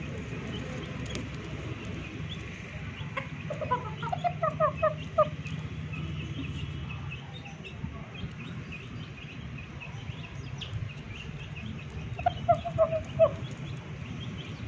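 Rooster clucking in two quick runs of short notes, five or six in each, a few seconds in and again near the end, over a steady low hum.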